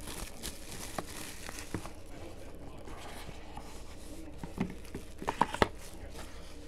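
Trading-card packaging being handled: the crinkle and rustle of a wrapper and a small cardboard box, with scattered light taps. A cluster of sharper clicks comes about four and a half seconds in, the loudest near the end.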